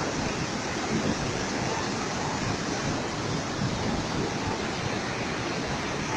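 Fast-flowing floodwater rushing over rocks: a steady, even rush of white water.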